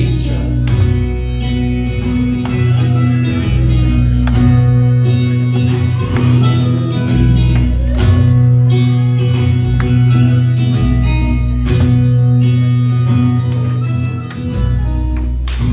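Live band playing an instrumental passage after the last sung line: harmonica and acoustic guitar over a low bass line that changes note every second or two.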